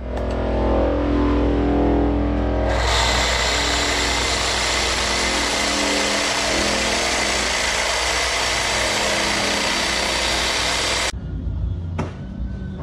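Cordless reciprocating saw cutting through PVC drain pipe: the motor starts slow, and about three seconds in the blade bites and saws steadily through the pipe for about eight seconds before cutting off suddenly.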